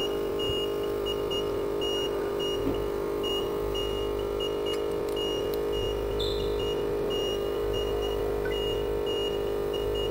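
Steady electric hum from an LCD screen-separating machine, with a high electronic beep pulsing on and off at a regular pace throughout.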